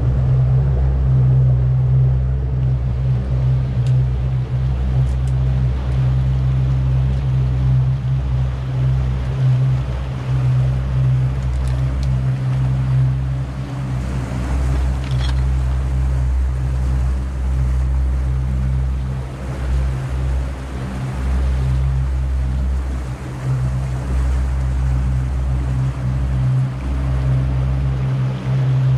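Twin outboard motors driving a boat under way, a steady low drone, with the wake churning and rushing behind the hull.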